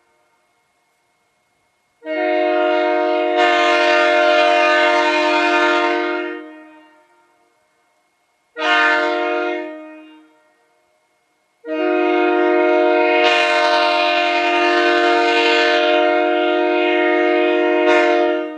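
Prime 990 locomotive air horn blown three times: a blast of about four seconds, a short blast of about a second, then a long blast of about seven seconds, each a steady chord of several notes.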